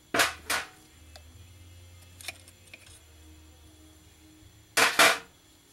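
Two pairs of short, sharp clanks, one pair at the start and another near the end, with a few faint ticks between: the metal pipes of a Ford Cruise-O-Matic automatic transmission being taken off.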